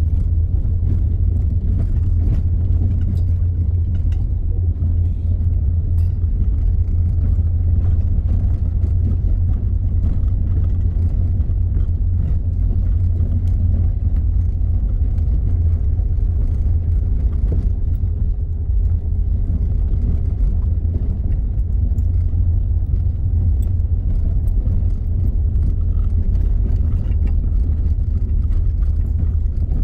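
Steady low rumble of a car driving over a rough, stony dirt track, heard from inside the cabin: engine and tyre noise with faint ticks and rattles, and a faint steady hum joining about halfway through.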